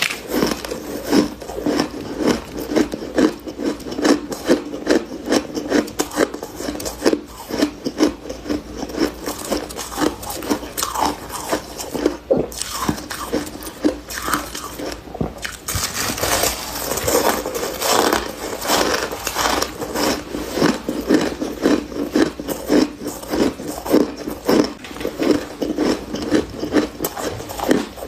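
Close-up biting and chewing of soft frost scraped from a humidifier: a steady run of crisp, crumbly crunches, a few each second, with a brief lull about halfway through.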